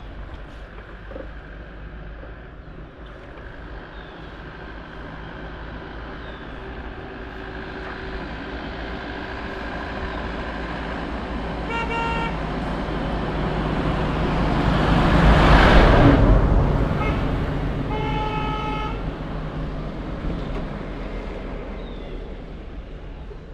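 A motor vehicle approaches, passes close by about two-thirds of the way through, and fades away. It sounds its horn twice: a short toot shortly before it passes and a longer honk just after.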